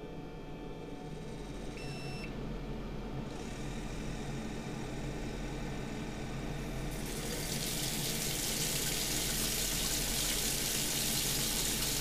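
A smartphone notification beeps once, briefly, about two seconds in. Then the open bathroom faucet starts running, a hiss from about three seconds in that swells to a full stream of water pouring into the sink from about seven seconds. The water is hot water from the building riser, flowing again once the motorized supply valve has reopened.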